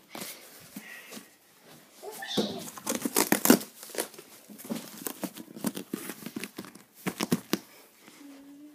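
A child sliding down on a homemade board: a quick run of knocks and clattering with crinkling, rustling cardboard and duct tape. It starts about two seconds in and dies away near the end.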